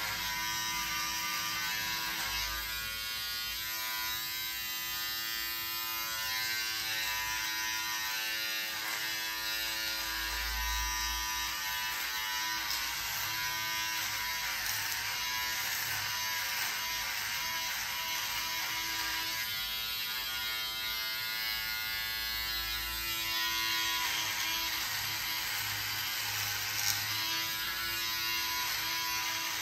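Philips Series 3000 electric beard trimmer running with a steady buzz while it cuts beard stubble, its pitch dipping briefly now and then.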